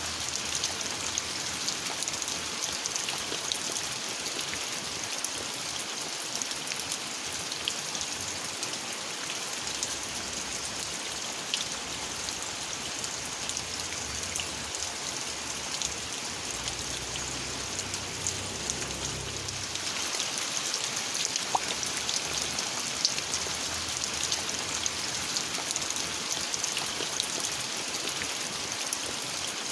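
Steady rain falling, with many separate drops ticking on surfaces over an even hiss. A faint low rumble comes in briefly past the middle.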